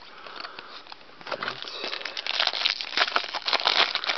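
A Bowman Chrome trading-card pack's plastic wrapper being crinkled and torn open by hand. It starts about a second in, with dense crackling that continues to the end.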